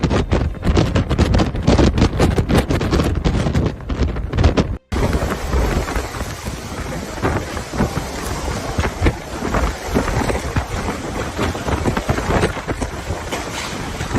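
Hurricane-force wind buffeting the microphone with heavy low rumbling. After a sudden break about five seconds in, it gives way to a steady hiss of wind-driven rain with scattered patters.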